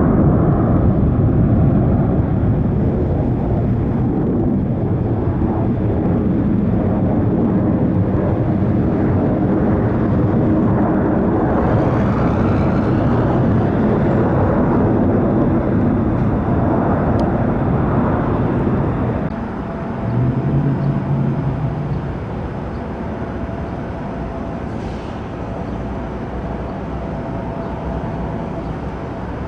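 Jet airliner engines running loud with a dense, low rumble, which drops off sharply about two-thirds of the way in, leaving a quieter steady hum with a thin, high steady tone.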